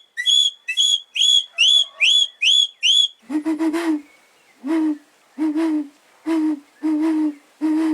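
Handmade calabash-gourd (jícaro) bird whistles imitating bird calls: a quick series of about seven short, high chirping whistle notes, then low hooting notes repeated about once a second, like an owl.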